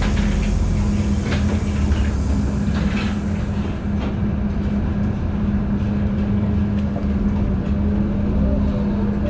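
LiAZ-5292.71 gas-powered city bus running, with a steady engine hum over low road rumble. A few short rattles sound in the first few seconds.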